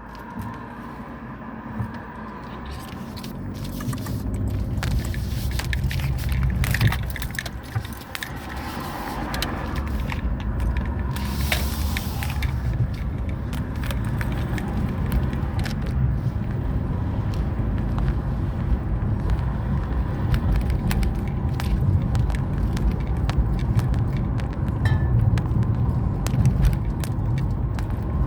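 Car driving: a steady low engine and road rumble that grows louder over the first ten seconds or so, then holds. Scattered small rattles and clicks run through it, with a brief hiss about twelve seconds in.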